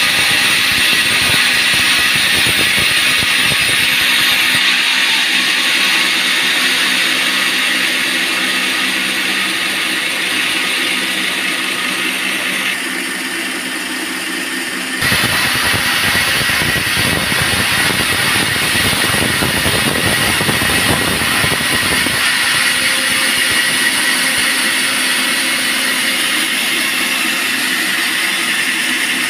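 Band sawmill running, a steady loud mechanical din of the motor and blade sawing teak timber, changing abruptly twice.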